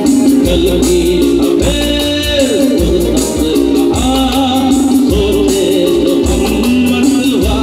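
Live band music amplified through a PA: a male singer singing a melody with wavering, ornamented notes, over keyboards, electric guitars and a steady beat.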